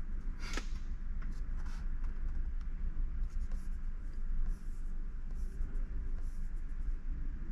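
Scattered soft rustles and scratches of handling over a steady low hum.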